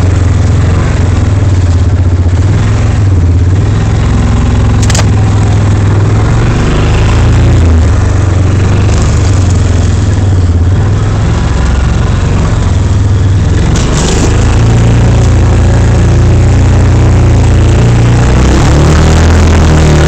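Yamaha Rhino side-by-side's single-cylinder engine running steadily under load as it drives through deep snow, heard loud from inside the open cab. It is broken twice by a short sharp knock.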